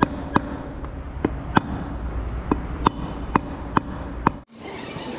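A hammer gives about nine light, sharp taps on a flywheel adapter, seating it into the transmission's bell housing. The taps come unevenly, often in pairs, and stop abruptly about four seconds in.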